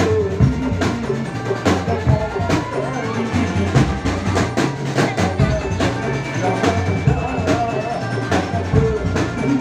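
Loud, percussion-heavy music with rapid drum strokes and a wavering melody over them, the kind of live accompaniment played for a jaran kencak dancing-horse show.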